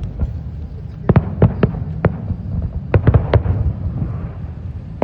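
Aerial fireworks going off in quick runs of sharp bangs, a cluster of several about a second in and another around three seconds in, over a steady low rumble.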